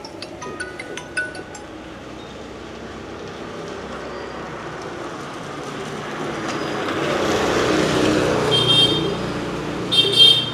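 Road traffic noise swelling as a vehicle draws near, with two short horn toots in the last two seconds.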